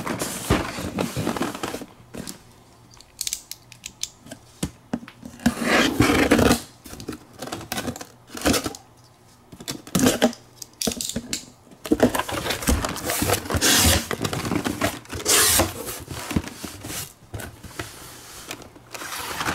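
A cardboard shipping case being opened by hand: a box cutter slicing through the packing tape, then irregular bursts of tearing, scraping and rustling as the cardboard flaps are pulled open.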